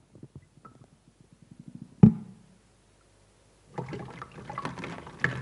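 Water poured into a glass with a run of small gurgles, then one sharp knock about two seconds in. From about four seconds in comes a louder, continuous pouring and splashing as the glass overflows.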